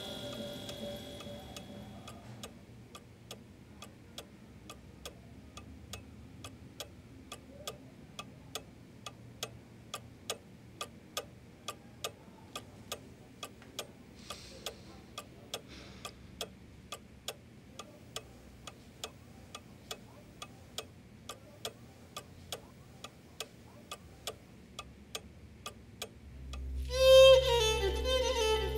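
A clock ticking steadily, about two ticks a second, over a faint hum. Music fades out at the start, and bowed-string music comes in loudly near the end.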